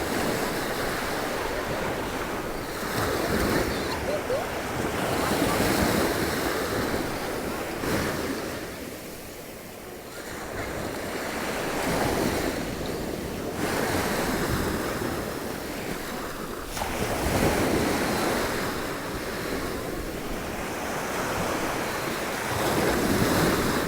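Surf washing onto a beach, the noise swelling and falling back every few seconds as waves come in, with wind buffeting the microphone.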